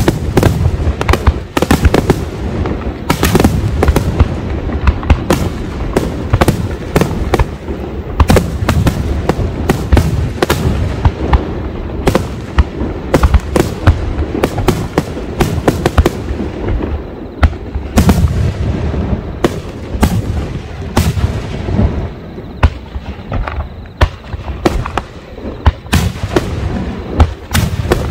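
Aerial firework shells bursting in a rapid barrage, with sharp booms and bangs several a second overlapping one another.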